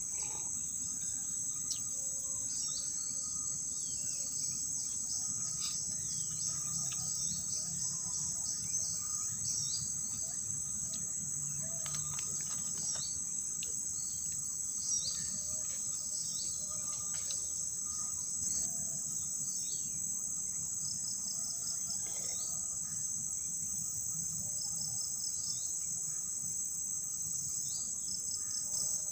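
Evening forest insect chorus: a steady high-pitched shrill, with many short chirps scattered over it.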